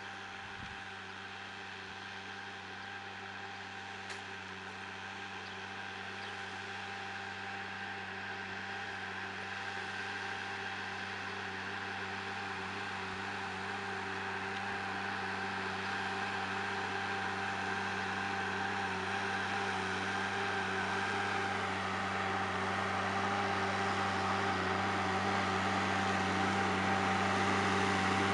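Deutz-Fahr M620 tractor engine running at a steady pitch under load while pulling a plough, a constant hum that grows steadily louder as the tractor comes closer.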